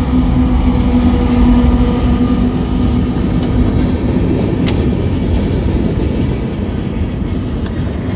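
Freight train rolling past at a grade crossing: the drone of the trailing CSX diesel locomotives fades over the first couple of seconds, leaving the steady rumble of boxcar wheels on the rails with a few sharp clanks around the middle.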